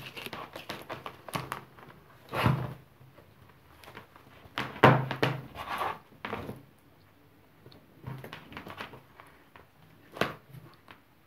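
Clicks and knocks from handling the repaired charging cable and the test gear on a work surface: a scatter of sharp taps, with louder knocks about a third of the way in, around the middle and once near the end.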